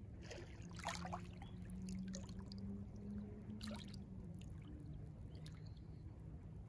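Small sea waves lapping gently at the shore, with a few small splashes about a second in and again near four seconds, over a faint steady low hum.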